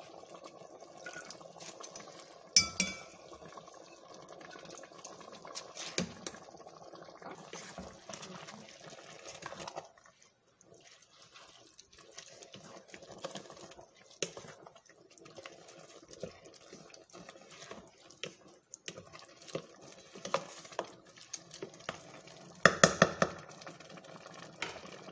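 A spoon stirring soaked rice into hot oil and tomato sauce in a metal pot: wet scraping and stirring, with sharp ringing clinks of the spoon against the pot now and then and a quick run of knocks near the end.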